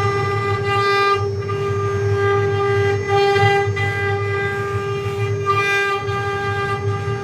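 CNC wood-carving router's spindle running with a steady, high whine over a low hum. The whine turns briefly brighter about three times.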